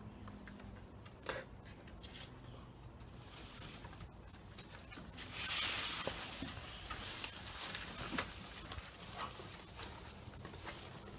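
A dry palm frond rustling and scraping over grass as two small dogs tug at it. It is loudest for about a second, five to six seconds in, with scattered light clicks throughout.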